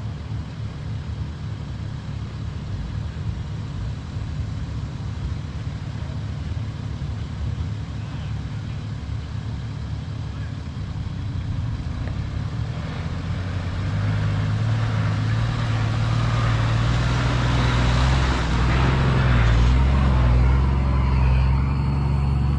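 Engines of a convoy of four-wheel-drive vehicles approaching slowly on a rocky dirt track, a steady low hum that grows louder about two-thirds of the way through. As the lead vehicle nears, the crunch of tyres on gravel joins in.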